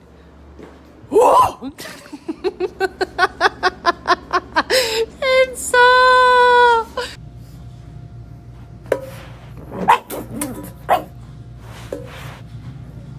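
A boxer puppy barking in a quick run of high yips that speeds up, then holding one long, steady howl. A few short, quieter yelps follow near the end.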